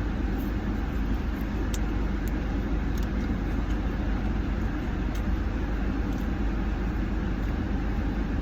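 Steady low rumble of an idling car heard from inside the cabin, with a few faint clicks.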